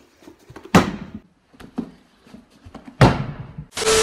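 Two loud thuds about two seconds apart, with fainter knocks between, as a pair of riding boots is handled and set down. Near the end a sudden burst of loud TV-static hiss with a steady tone starts: a video transition effect.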